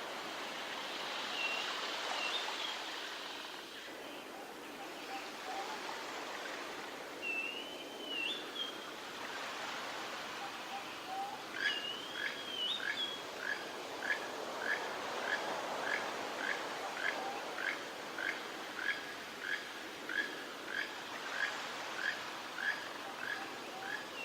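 Steady wash of surf with birds calling over it: a short whistled, warbling phrase every few seconds, and from about halfway through a run of short, sharp notes repeated about one and a half times a second.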